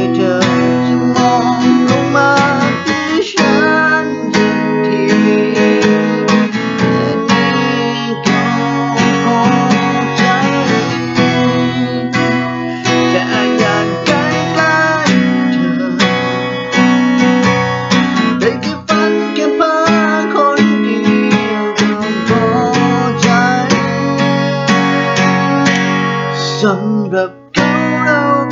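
Acoustic guitar strummed in a steady rhythm of chords, with a brief break in the strumming just before the end.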